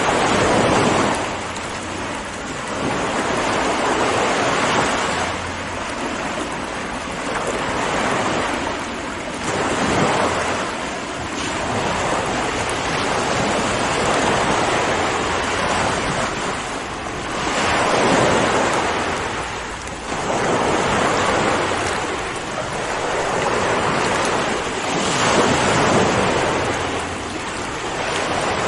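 Ocean waves breaking and washing on a shore, a continuous surf hiss that swells and ebbs every few seconds.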